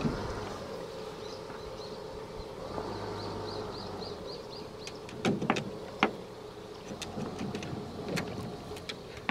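Steady buzzing of insects, with a run of about eight short high chirps early on. A few sharp knocks, the loudest about five seconds in, as the dog's feet land on the wooden canoe hull.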